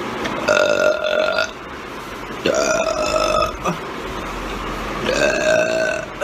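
A woman belching three times, each burp drawn out for about a second and held at a steady pitch.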